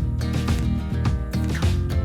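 Background music with plucked-string notes and a steady beat.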